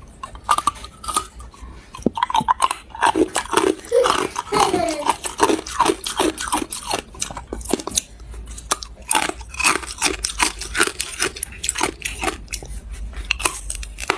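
Matcha-powder-coated ice being bitten and chewed: a rapid run of sharp crunches and cracks, starting about half a second in.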